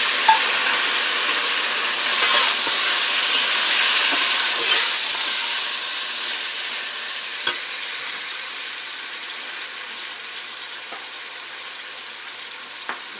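Onions and whole spices frying in hot oil in a pot: a loud, steady sizzle that slowly dies down over the second half, with one sharp tap a little past halfway.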